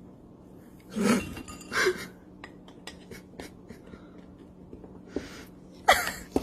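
A pet parrot gives two short calls about a second in, then a string of small sharp clicks, and another call with a falling pitch near the end.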